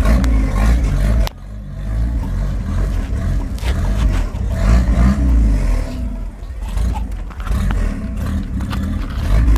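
Chevrolet Opala engine revving loudly through an opened exhaust cutout, cutting off sharply about a second in, then blipped up and down again with scattered exhaust pops and crackles.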